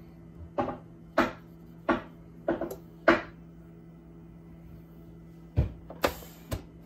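Five short sharp clicks about half a second apart, then a thump, a brief clatter and a click near the end as a FoodSaver vacuum sealer's lid is released after sealing, over a faint steady hum.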